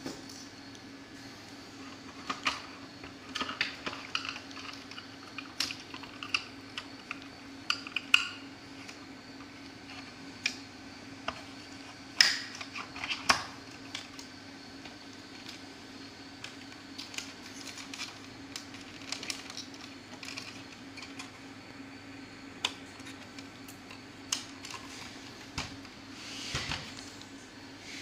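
Hands handling the parts inside an opened projector, making scattered small clicks and knocks of plastic and metal. The loudest knocks come about a third and about halfway through. A steady low hum runs underneath.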